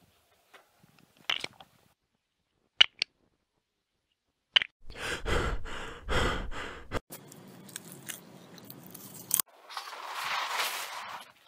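A few sharp clicks, then about two seconds of loud crunching and scraping, a softer steady hiss that cuts off suddenly, and a short burst of crunching near the end.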